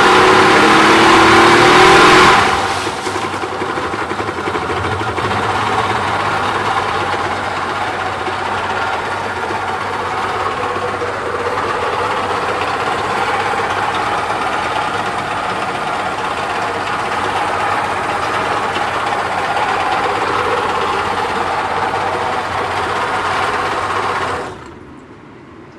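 Yamaha 30 three-cylinder two-stroke outboard running at higher revs for the first two seconds or so, then dropping to a steady lower speed, and shut off near the end. It runs noisily, with noise from its crankshaft bearings, which the mechanics take for worn bearings.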